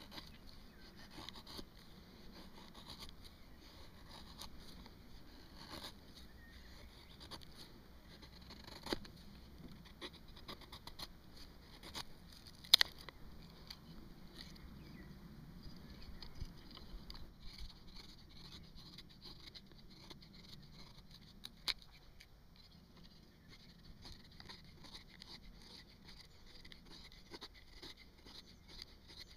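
Knife blade shaving a hazel stick into a featherstick: a run of short, faint scraping strokes as curls are cut down the wood. A few sharp clicks stand out, the loudest about halfway through.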